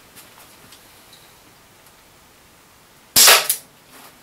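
Chiappa Rhino 50DS CO2 airsoft revolver firing a single sharp shot about three seconds in, after a few seconds of quiet.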